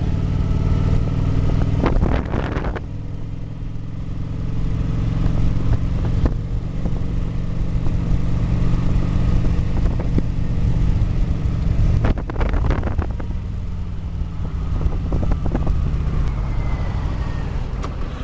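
Cruiser motorcycle's engine running steadily at riding speed, with wind noise on the microphone. Two short louder rushes come about two seconds in and again past midway.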